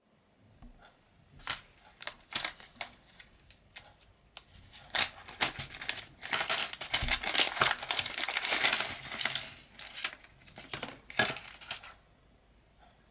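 Resealable plastic bag of electronic kit parts being handled and opened: irregular crinkling and crackling with scattered sharp clicks, densest in the middle as the bag is pulled open and the circuit board drawn out.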